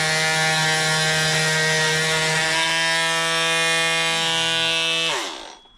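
Electric oscillating multi-tool running steadily with a buzzing whine, then switched off about five seconds in, its pitch falling as the motor winds down.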